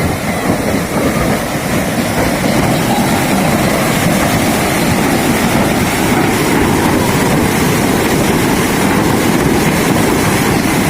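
Steady, loud rushing noise without distinct strokes or tones.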